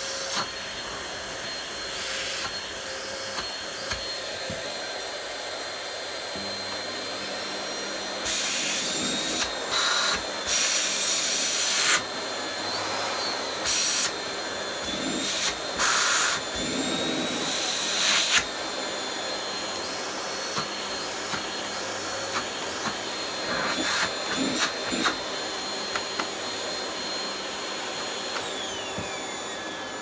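Budget bagged cylinder vacuum cleaner running with a steady motor whine and rushing airflow, during an airflow comparison between two machines. Louder rushes of air come several times in the middle, and near the end a whine falls sharply in pitch.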